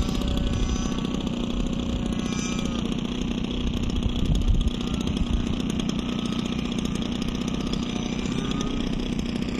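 Evolution .52 two-stroke glow engine of an RC model airplane buzzing steadily in flight, its tone climbing in pitch near the end.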